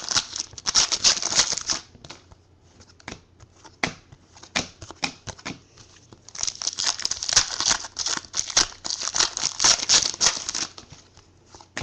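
Trading-card pack wrappers crinkling and tearing, with cards clicking and sliding as they are handled. A dense stretch of crinkling comes at the start and a longer one in the second half, with scattered ticks between.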